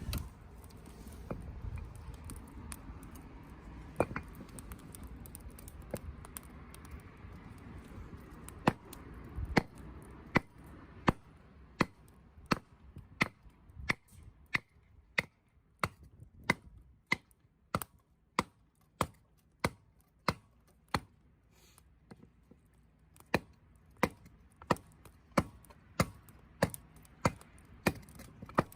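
Campfire crackling: sharp, irregular pops and snaps from burning wood, sparse at first and coming more often, about one or two a second, through the second half.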